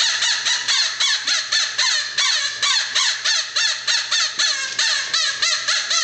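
A stuffed squeaky toy bird sounding a rapid, regular string of squawking chirps, about four or five a second.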